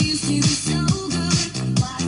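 Upbeat disco-style dance music with a steady thumping beat, about two beats a second, and a bass line, played on a JVC KD-G343 car stereo.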